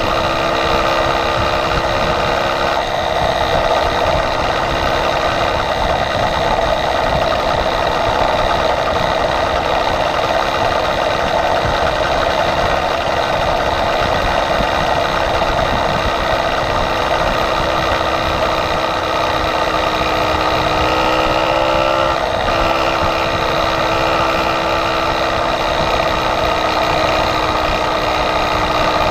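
Small motorized-bicycle engine running steadily at cruising speed, heard close up from the bike it powers, with wind noise on the microphone. Its pitch rises slightly about twenty seconds in, dips briefly, then settles back.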